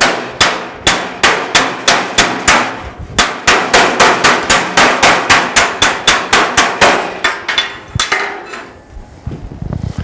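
Body hammer tapping a thin sheet-steel fender against a dolly held behind it: a quick, even run of light, ringing metal strikes, about three a second, stopping about eight seconds in. This is hammer-and-dolly work on a welded patch seam, raising the low spot to bring the panel back to its contour.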